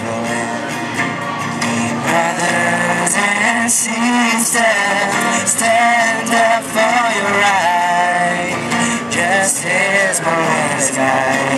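A man singing lead into a microphone, with women's voices singing along, to an acoustic guitar.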